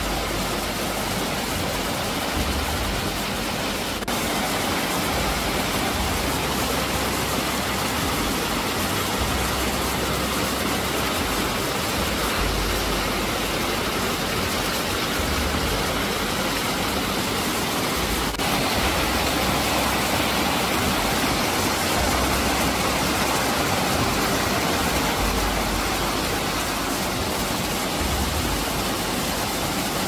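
Mountain waterfall, a tall narrow cascade plunging down a rock face onto boulders: a steady rush of falling water.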